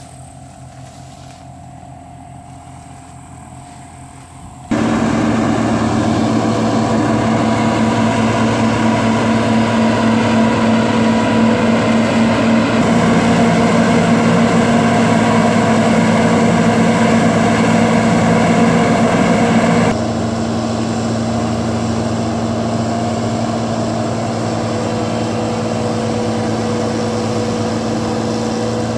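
Combine harvester's diesel engine running steadily at close range, a fainter hum at first. About five seconds in it suddenly becomes much louder, then drops back a little around twenty seconds in, its pitch holding level throughout.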